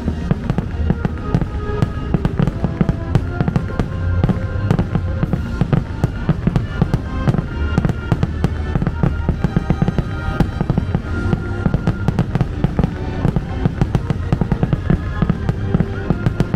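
Aerial fireworks going off in a rapid, unbroken barrage, many bangs a second, with show music playing underneath.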